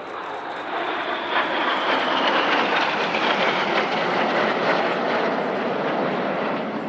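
Red Arrows BAE Hawk T1 jets flying past in close formation. The jet roar swells over the first couple of seconds and then holds, with a faint whine that falls slowly in pitch as they pass.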